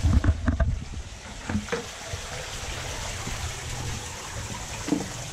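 Water pouring steadily from a pipe into a fish holding tank, an even splashing hiss. A few low knocks and thumps come near the start and again near the end.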